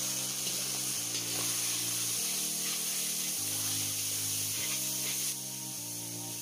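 Marinated duck meat sizzling in hot mustard oil in an iron wok, stirred and scraped with a spatula. The sizzle's hiss drops a little about five seconds in.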